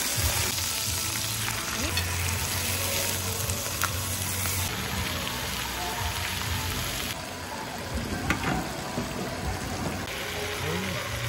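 Pork belly sizzling on a hot grill pan, a steady frying hiss that steps up and down in level a few times, with a few faint clicks.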